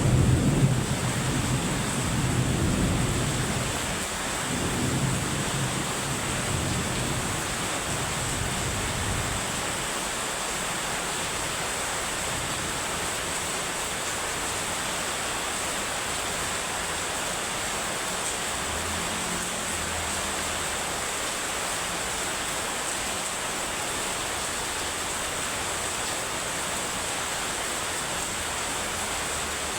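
Heavy rain falling in a steady hiss. A low thunder rumble dies away over roughly the first nine seconds.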